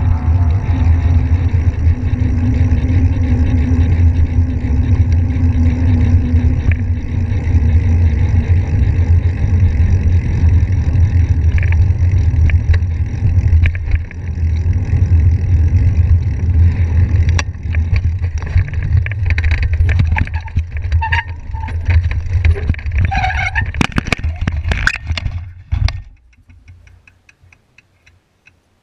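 Wind buffeting and road rumble on a handlebar-mounted GoPro as a mountain bike rolls down a paved road. Rattles and knocks come in over the second half and grow busier, then the sound drops to a faint hiss near the end.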